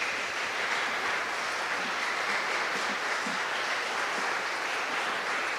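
A congregation clapping, steady and unbroken, as a show-of-enthusiasm vote.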